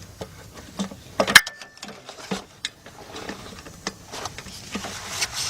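Scattered metal clicks and taps of a socket on an extension being worked onto a starter mounting bolt. One sharp clink about a second in rings briefly.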